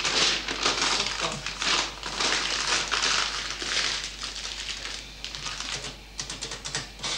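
Butcher's paper rustling and crinkling as a pork roast is wrapped in it, in quick irregular bursts, thinning to lighter separate rustles and clicks near the end.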